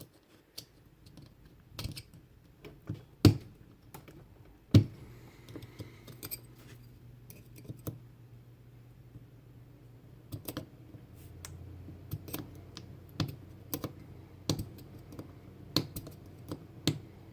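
Irregular sharp metal clicks and taps of a tool working at a tight circlip on the back of a mortise lock cylinder, with two louder snaps about three and five seconds in.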